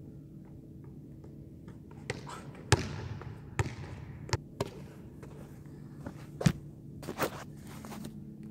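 A rubber ball being kicked and juggled on a gym floor, about ten sharp thumps at uneven intervals, each echoing briefly in the large hall, over a steady low hum.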